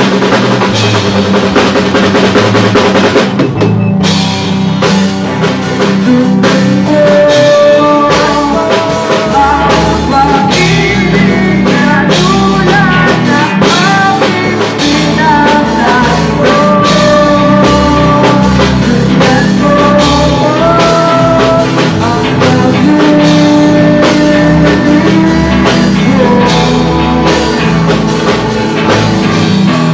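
A live rock band playing: drum kit, electric guitars and a singer on a microphone through PA speakers. There is a short break about four seconds in, then the song carries on with the vocal melody.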